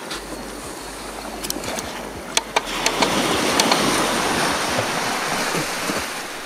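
Small sea waves breaking and washing up a sand beach; the wash swells about halfway through and dies away near the end. A few light clicks come before it.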